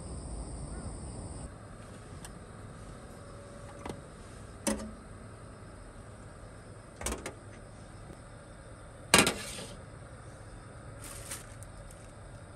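Four separate knocks and clunks, the loudest about nine seconds in, like things being handled or shut. A steady high insect chirring drops much quieter about a second and a half in.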